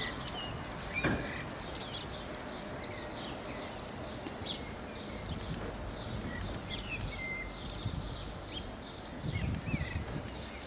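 Many small birds chirping and twittering in short calls over a steady outdoor noise background, with a thump about a second in and a few low knocks near the end.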